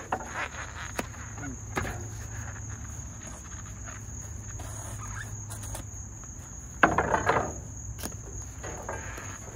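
Scrap copper being handled and worked: a few short clicks, then a louder scraping clatter about seven seconds in. A steady high-pitched whine and a low hum run underneath.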